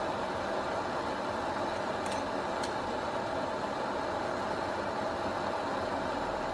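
Handheld butane blow torch burning with a steady hiss as its flame plays on a sheet of fabric, with two faint ticks about two seconds in.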